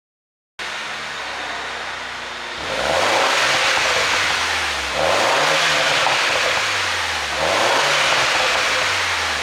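2011 MINI Cooper S (R56) 1.6-litre turbocharged four-cylinder, on an ECU tune made for exhaust pops, starts idling about half a second in and is then revved three times. Each rev rises and falls back toward idle.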